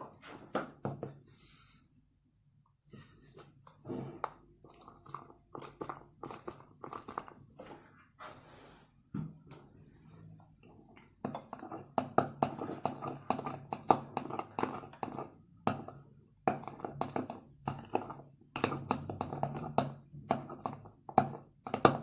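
Homemade slime of Fevicol glue and Pond's powder being worked, making a quick irregular run of small sticky clicks and squishes. There are a few short pauses, and it gets busier and louder about halfway through.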